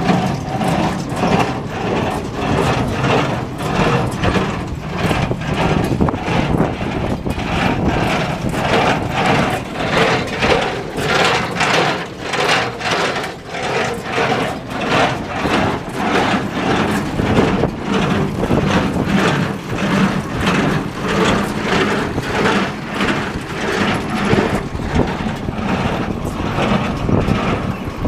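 New Holland 575 small square baler running off a tractor, its mechanism beating out an even, fast rhythm of strokes over the steady hum of the tractor engine.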